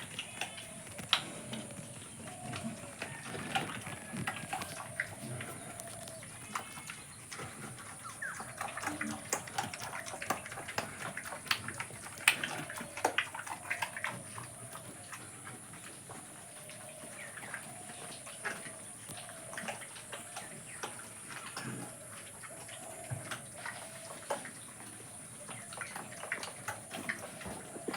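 Pigs grunting in their pens, with frequent short knocks and clatter and a few high chirping calls.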